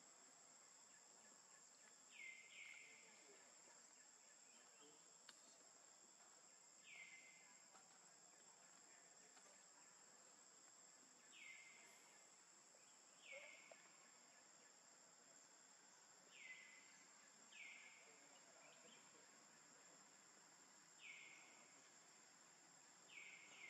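Faint steady high-pitched insect drone, with a bird calling every few seconds: short notes falling in pitch, often two in quick succession.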